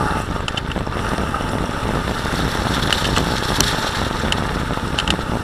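Bicycle rolling fast over a rough, partly frozen woodland trail behind pulling dogs: a steady rumble of tyres with wind on the microphone, and a few light clicks and rattles.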